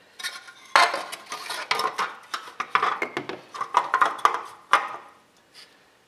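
Sheet-metal exhaust manifold heat shield clattering and clanking against the manifold as it is worked back into place: a quick run of light metallic knocks and rattles that dies away near the end.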